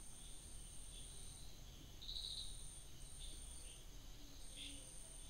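Faint, high-pitched insect chirring that starts and stops in stretches of a second or so, over low room noise.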